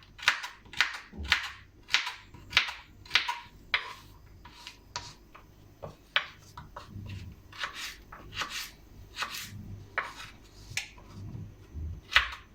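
Kitchen knife chopping vegetables on a cutting board: a run of sharp chops at about two a second, growing softer and more irregular after a few seconds.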